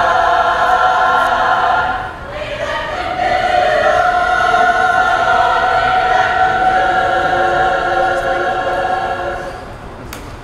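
Mixed-voice school choir singing sustained chords. There is a short break for breath about two seconds in, then a long held final chord that fades away near the end, closing the song.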